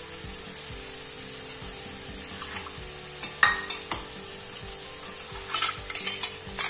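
Masala paste sizzling softly in hot oil in a kadai over a steady low hum, with a few light clicks and clinks about three and a half seconds in and again near the end.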